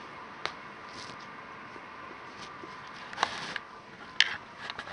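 Faint steady hiss of a quiet small room, broken by a small click about half a second in, a brief rustle a little after three seconds, and a few sharp clicks near the end, most likely from the camera being handled and moved.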